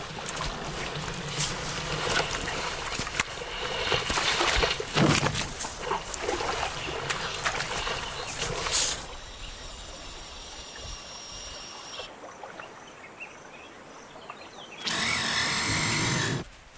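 Elephants wallowing in mud, with wet splashing and sloshing for the first half. It then goes quieter, with a steady high buzz of insects, and a short louder stretch near the end.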